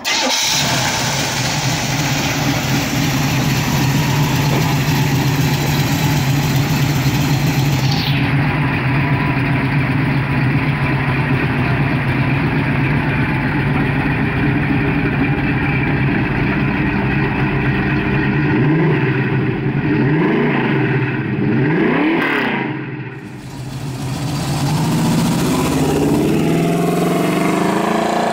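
1979 Pontiac Trans Am's big-block Pontiac V8 running at a steady idle, then revved up and down a few times about two-thirds of the way in. After a short dip it rises in pitch again near the end as the car accelerates away.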